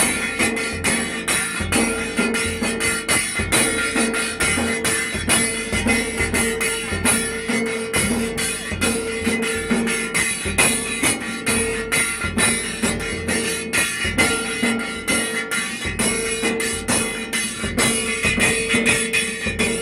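Several dhol drums beaten in a fast, steady rhythm, about four strokes a second, with a repeating held note over the drumming.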